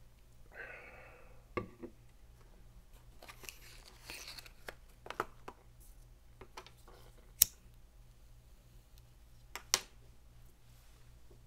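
Faint scattered clicks, taps and rustles of handling in a small room, over a low steady hum, with a short soft hiss about half a second in.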